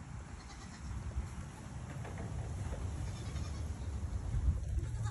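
Goats bleating over a steady low rumble.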